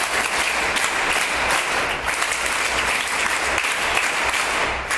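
A roomful of people clapping together in steady applause: the group "NSS clap" called for by the host.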